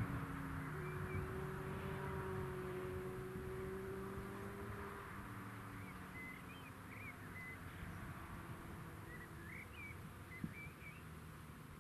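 Wind noise on the microphone, with short chirping bird calls coming in from about halfway through over a faint steady drone.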